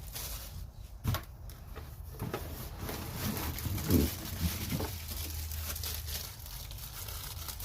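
Rustling and light knocking of packaging and plastic parts being handled, with one louder knock about four seconds in.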